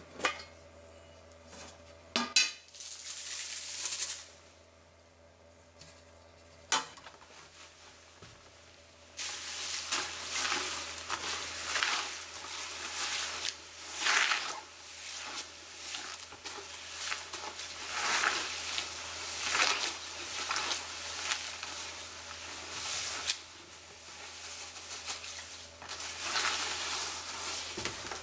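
Small charcoal pieces stirred and rubbed by hand in a plastic bucket, a gritty rattling and clinking as the remaining dust is knocked off them. A few sharp knocks come in the first seven seconds, then steady rattling from about nine seconds in.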